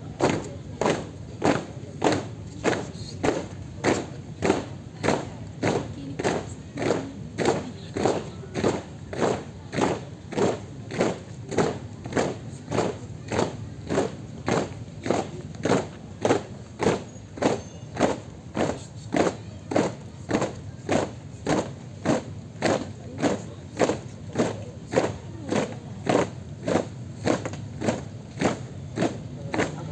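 A marching troop's boots stamping in unison on hard ground, at an even march pace of about three steps every two seconds.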